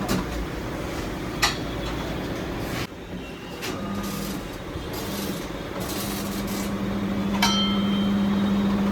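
Steady workshop machinery hum that cuts out about three seconds in and starts again, with three sharp metallic clicks or knocks from tool work.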